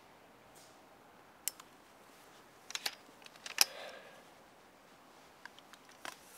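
A handful of sharp clicks and knocks, with a few separate ones about a second and a half in and just under three seconds, and the loudest at about three and a half seconds followed by a brief rustle.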